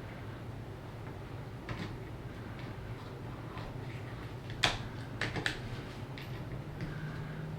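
Small RC transmission parts clicking and tapping as they are handled and fitted by hand, with light scattered ticks, one sharp click a little past halfway and a quick few more just after it.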